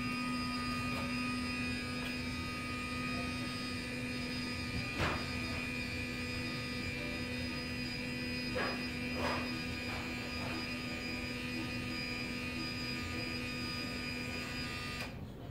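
D80 electric curtain motor running with a steady whine of several constant tones as it draws the curtain, then cutting off suddenly near the end. A few faint knocks sound in the middle.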